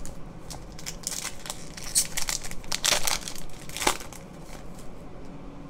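Foil trading-card pack wrappers crinkling in the hands, an irregular run of crackles that is loudest about two to four seconds in.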